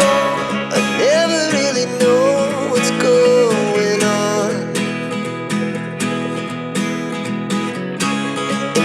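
Background music: a song with a sung melody over acoustic guitar.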